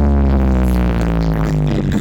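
Electronic dance music played loud through a large horeg sound system during a sound check, holding one long deep bass note that sinks slightly in pitch before the beat comes back in near the end.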